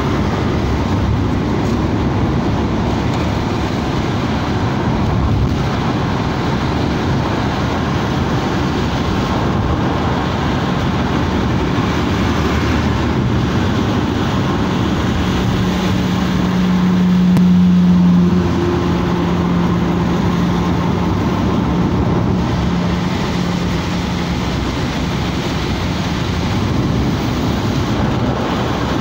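Steady road noise inside a moving car on a rain-wet road: tyres on wet asphalt and the car running. A low hum swells to its loudest about 18 seconds in, then drops and fades out.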